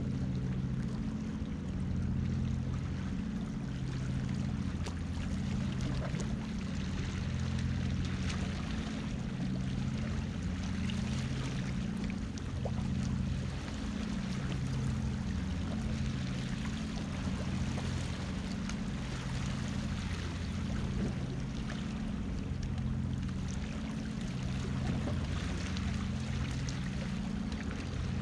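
Background music: a low bass line of held notes repeating in a regular pattern, over the steady wash of sea water.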